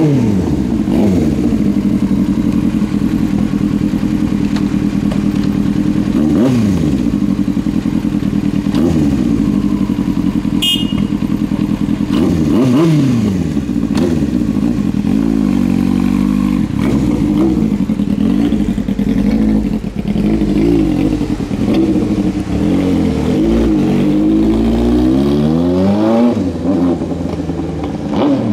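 Yamaha R1's inline-four engine running at low speed, with throttle blips rising and falling in pitch, a few in the first half and many in quick succession in the second half.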